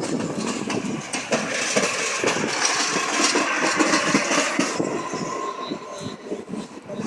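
Passenger train moving through a railway station, its wheels knocking over rail joints and points, with a hiss over it that stops about five seconds in.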